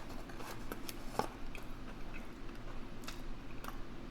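A person chewing a mouthful of fast food close to the microphone: irregular soft clicks and smacks of eating.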